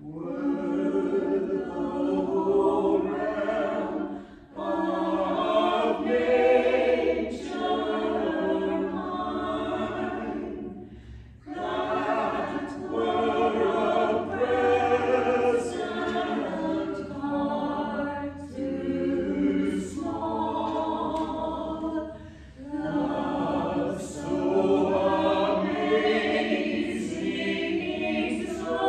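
Small church choir singing a hymn-like piece in several phrases, with brief pauses for breath between them.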